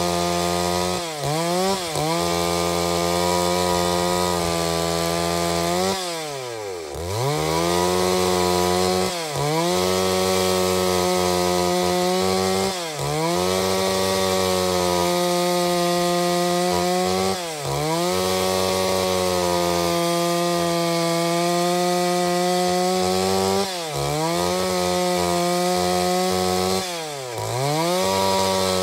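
Stihl MS 381 two-stroke chainsaw running at high revs while ripping lengthwise through a log. Its revs dip sharply and climb back several times.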